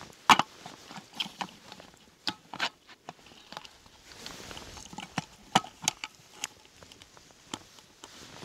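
Camp cooking gear being packed up: about ten scattered clicks, knocks and light clatters as the pieces are handled and put away.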